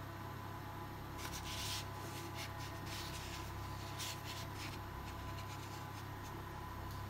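Pen drawing on paper: a series of short scratchy strokes, some ruled along a straightedge, over a steady low electrical hum.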